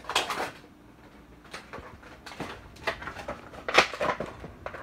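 A Funko Pop cardboard box with a plastic window being handled and opened by hand: scattered scrapes, taps and rustles, the loudest a little under four seconds in.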